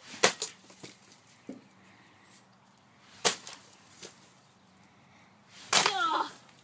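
A broom whacking a cactus: a sharp hit right at the start with a couple of smaller knocks just after it, then one loud single whack a little past three seconds in and a lighter knock about a second later. A short voiced exclamation near the end.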